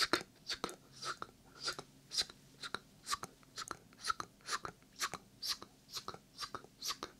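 Whispered 'sk-sk' ASMR mouth sounds made close into a binaural microphone: a steady run of short, crisp hisses, about two a second.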